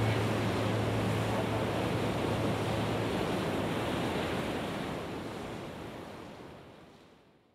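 A steady rushing noise with no distinct tones that fades away over the last three seconds or so to silence.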